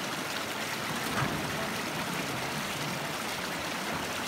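Fast river rushing over rocks: a steady, even noise of running water.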